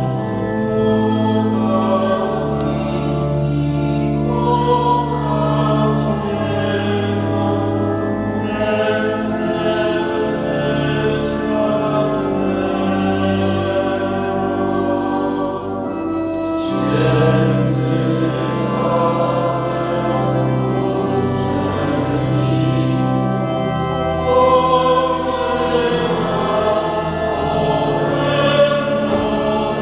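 A choir singing a slow hymn in honour of St Paul the First Hermit, with long held low notes under the voices.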